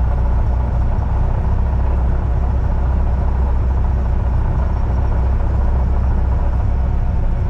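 Single-engine piston airplane's engine and propeller running steadily, heard inside the cockpit as a loud, even drone with a strong low hum.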